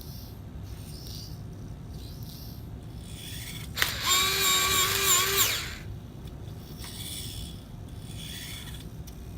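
Electric pencil sharpener's motor running for about a second and a half, with a steady whine over a rough grinding sound, starting suddenly a little before the middle and dying away.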